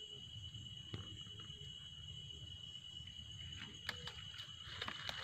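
Steady high chirring of night insects, with a few light clicks and rustles from hands working a wire rat trap among dry leaves.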